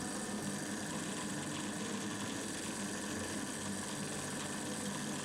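Food processor motor running steadily, its blade mixing pastry dough of flour, fat and water until it comes together in a ball.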